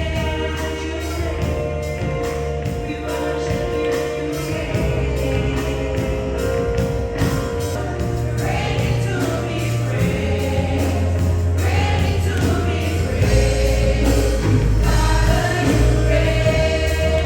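Music: a choir singing in a gospel style over a deep bass line and a steady beat.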